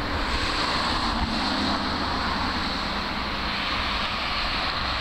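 Steady road traffic noise from passing vehicles, with a low engine hum under it.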